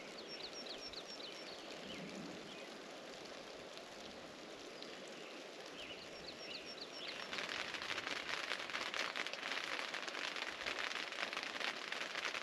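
Light rain falling, with a small bird giving a quick run of short high chirps twice. About seven seconds in the rain becomes louder and denser pattering.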